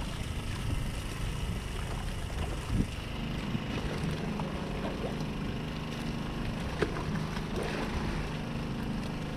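Steady low rumble of a purse-seine fishing boat's engine running, with a few short knocks as a net of mackerel is hauled aboard.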